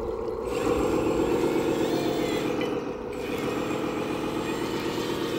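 1/14-scale RC Volvo A40G articulated dump truck driving loaded over gravel, its drive running steadily.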